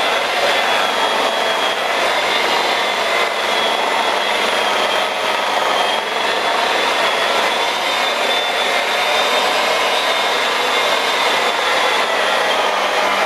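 Electric rotary polisher with a foam pad running steadily against wet car paint. Its motor gives a high whine that wavers slightly in pitch.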